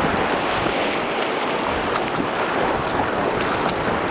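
Small Lake Michigan waves washing over a shallow, pebbly shore: a steady rush with faint splashing ticks, mixed with wind.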